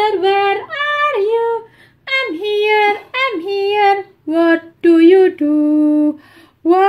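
A high female voice singing a children's tune in short phrases with long held notes.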